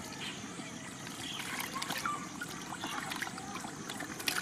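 Water and fish pouring out of a tipped plastic bucket into a shallow mud hole, trickling and splashing, with a sharper splash near the end.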